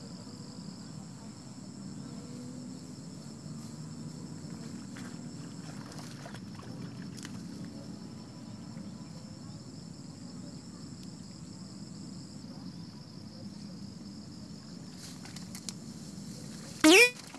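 Steady high-pitched insect chorus, with a low background hum under it. Near the end comes a brief, very loud sweep that rises steeply in pitch.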